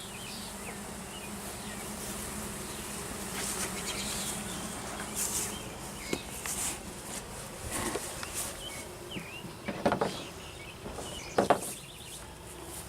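Honeybees buzzing around an open hive, a steady hum. Twice near the end, about two seconds and then about a second and a half before it closes, there is a sharp knock.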